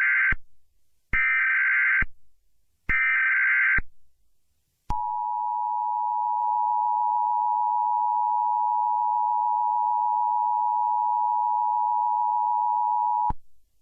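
Emergency Alert System tones: three bursts of SAME digital data, each about a second long, then the steady two-tone EAS attention signal, held for about eight seconds before it cuts off abruptly.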